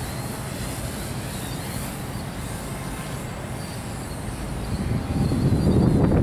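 Wind buffeting the microphone, swelling into a stronger gust about five seconds in, over the faint steady whine of a DJI F450 Flame Wheel quadcopter's motors and propellers in flight.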